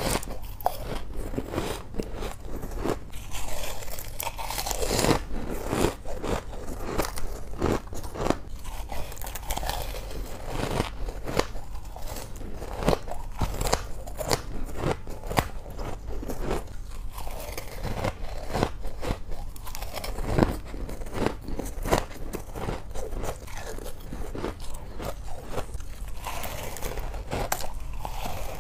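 Soft frost ice being bitten and chewed: a continuous run of crisp crunches and crackles, with louder bites now and then.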